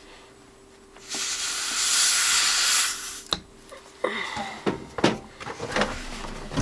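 Air hissing at an electric unicycle's tyre valve while an air hose is fitted to it. The hiss lasts about two seconds and stops with a click, followed by a few light clicks and knocks of handling.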